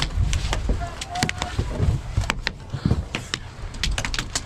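Scattered, irregular sharp snaps and clicks, typical of airsoft gun shots and BB hits, over low rumbling movement noise. Faint voices can be heard.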